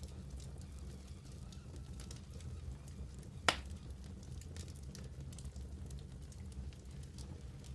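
Wood fire burning in a fireplace: a steady low rumble with scattered small crackles and one loud pop about halfway through.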